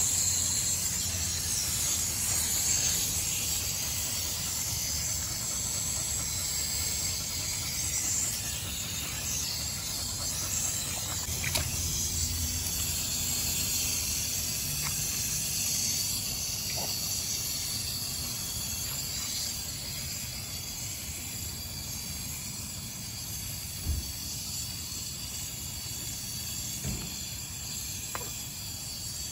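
Garden hose spray nozzle spraying water into a dog's thick wet coat as it is rinsed: a steady hiss of spray, louder through the first half and easing off later.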